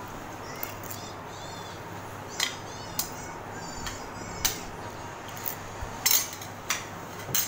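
Metal spoons and forks clinking and scraping against ceramic plates, about half a dozen sharp irregular clinks, the loudest cluster about six seconds in.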